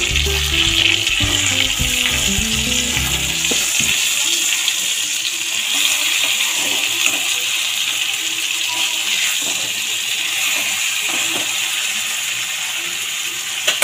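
Whole masala-coated fish frying in hot mustard oil, a steady sizzle, with a metal spatula now and then scraping and knocking the pan as the fish is turned over. Background music plays over the first few seconds, then stops.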